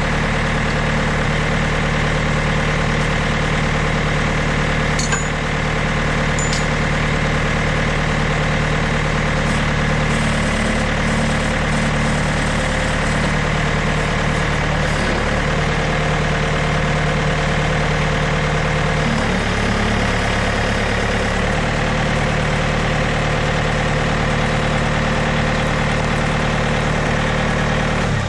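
John Deere 110 tractor-loader-backhoe's diesel engine running steadily near idle, its low tone shifting briefly about twenty seconds in.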